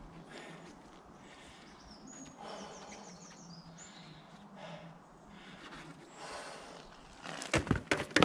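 A unicycle crashing down onto tarmac near the end, a quick cluster of loud hits and clatter along with the rider's feet landing as he comes off it. Before that, only low background with a short run of high bird chirps a couple of seconds in.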